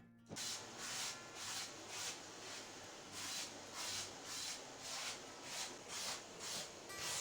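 Rhythmic brushing strokes during household cleaning, a steady back-and-forth swish about two times a second. It starts when the music cuts off just after the start.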